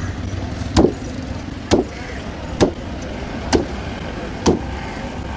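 A heavy curved fish-cutting knife chopping through a fish's head and bone into a wooden board: five sharp knocks about once a second, over a steady low rumble of traffic.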